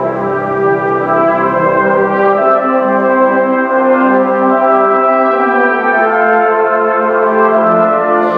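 Brass band of cornets and lower brass playing together, loud sustained chords; the lowest bass notes drop out about two seconds in.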